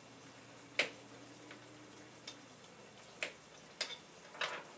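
Food frying quietly in a pan with a faint sizzle, broken by about five sharp clicks and knocks of kitchen utensils.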